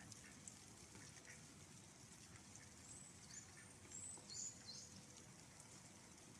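A few short, high bird chirps about halfway through, over a faint steady hiss.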